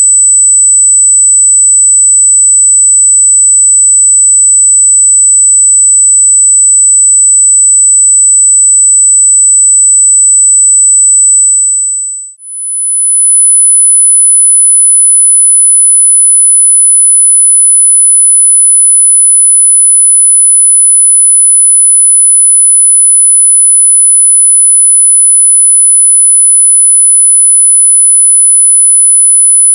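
Loud steady 8000 Hz sine-wave test tone that fades out a little under halfway through, followed at once by a steady 10000 Hz sine-wave test tone, for checking speaker response.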